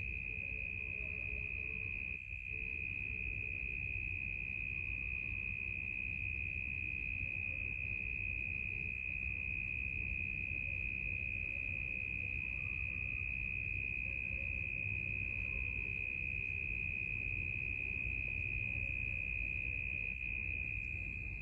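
Night-time insects trilling in one continuous, steady high-pitched drone, over a low background rumble.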